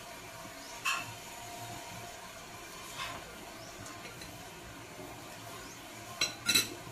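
Light clinks and taps of tableware as gloved hands pick at food beside a glass sauce bowl: one about a second in, another near three seconds, and a quick, louder pair near the end, over a faint steady hum.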